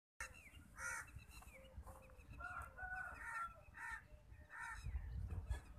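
Chickens calling in a string of short, pitched clucks and cackles, with a low rumble near the end.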